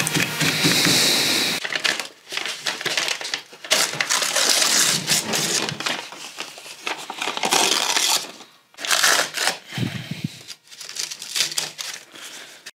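Paper template being torn and pulled off a board studded with nails, ripping and crinkling in irregular bursts. A steady hiss comes first, for about a second and a half.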